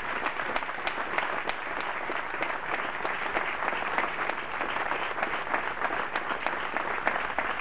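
Audience applauding steadily: many people clapping at once, holding at an even level.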